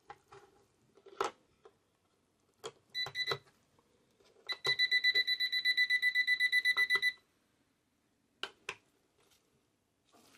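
Digital alarm clock beeping: a short burst of high beeps about three seconds in, then a rapid run of beeps, about seven a second, for some two and a half seconds. Sharp clicks come before and after the beeping.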